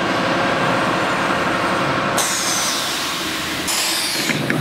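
BEASEE ATC CNC router with a boring and drilling unit running: a loud, steady machine noise with rising and falling high whines. The sound changes abruptly about two seconds in and again near the end.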